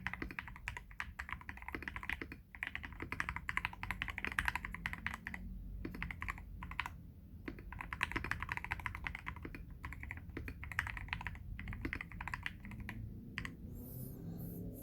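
Fast typing on a KBD67 Lite R3 mechanical keyboard with lubed Everglide Aqua King 62gf linear switches and XDA-profile PBT keycaps: dense runs of keystroke clicks with brief pauses, stopping shortly before the end.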